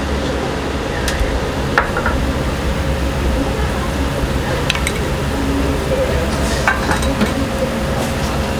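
Restaurant kitchen at work: a steady low hum and hiss, with a few short clinks and knocks of utensils and pots.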